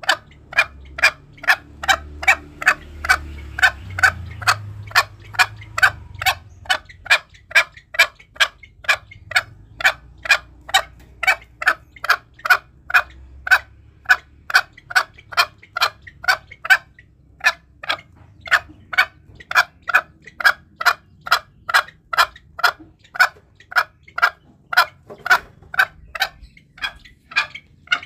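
Green junglefowl clucking: a long, steady series of short notes, about two a second, with a brief pause a little past the middle.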